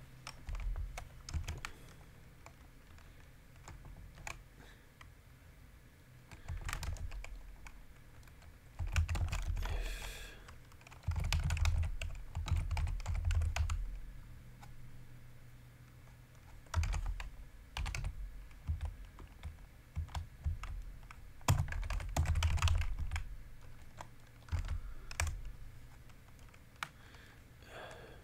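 Typing on a computer keyboard, the keys clicking in several short bursts with pauses between them.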